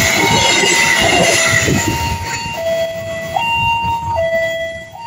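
A passenger train's coaches rolling past with a high wheel squeal, the noise fading away about two seconds in. Throughout, a level-crossing warning alarm sounds two alternating tones, high and low, switching a little faster than once a second.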